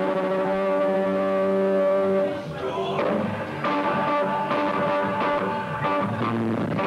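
Live rock band playing, with distorted electric guitar chords held loud and steady. The music thins and drops for about a second partway through before the chords come back in.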